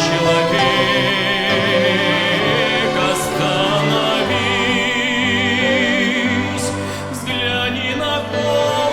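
Chamber string orchestra playing a hymn with singers, voices and strings held with wide vibrato.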